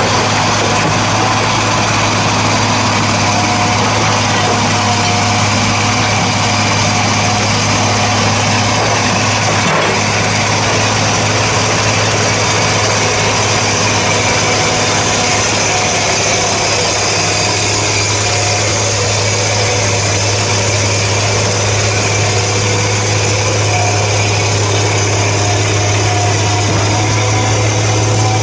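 Diesel engine of a worn JCB 814 excavator running steadily with a constant low hum, with one faint knock about ten seconds in.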